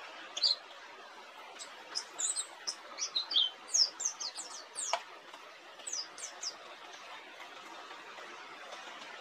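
Pleci dakun, a white-eye, singing in bursts of quick, high chirps and downward-sliding notes. The song stops about six and a half seconds in, leaving a steady hiss.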